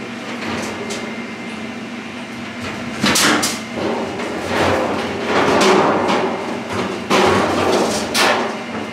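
Work noise: several sharp knocks and bangs with clattering in between, from materials being struck or handled, over a steady low hum. The knocks come about three seconds in and again near the end.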